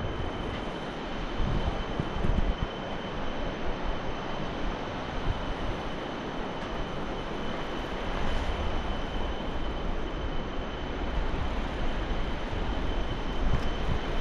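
Wind rushing and buffeting over a handheld action camera's microphone as a bungee jumper swings on the cord, a steady rush with gusty low rumbles.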